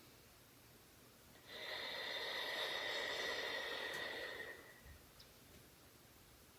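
One long, breathy exhale of about three seconds blown out through the mouth, with a thin whistling tone running through it: the drawn-out out-breath of paced breathing exercise for cough relief.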